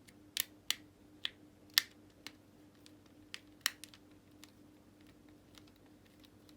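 Light, irregular clicks and taps of small screws and plastic parts being handled as an Xbox One controller is taken apart, most of them in the first four seconds, over a faint steady hum.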